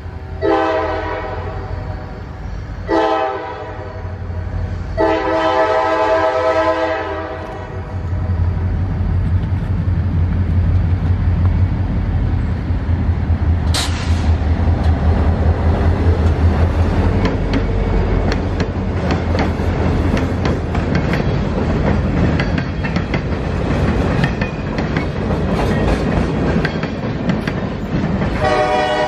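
Norfolk Southern diesel locomotives' air horn sounding three blasts, the middle one shortest, then the low rumble of the engines passing close by. After that comes the steady clatter of freight-car wheels over the rail joints, with a brief high squeal about fourteen seconds in. The horn starts again near the end.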